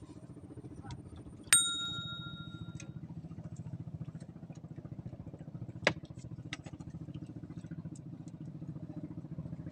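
A small engine runs steadily with a fast low chug. About a second and a half in, a single sharp metallic ring sounds and dies away over about a second and a half, and there is a shorter click a few seconds later.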